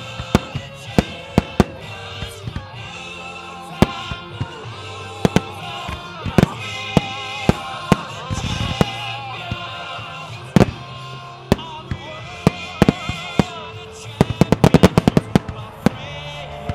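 Aerial fireworks bursting with music playing, single sharp bangs every second or so, then a rapid volley of many bangs near the end.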